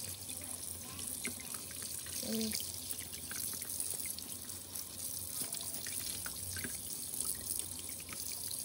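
Kitchen tap running steadily into a stainless-steel sink, with light scraping ticks as a pinfish is scaled with a bread knife.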